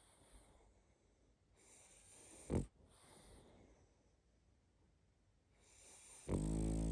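A sleeping pug snoring. Two long, noisy indrawn breaths each end in a snore: a short sharp snort about two and a half seconds in, and a longer buzzing snore near the end.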